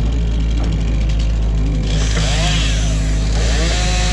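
Excavator diesel engine running steadily under load, with hydraulic whines gliding up and down in pitch; a hiss joins about halfway through.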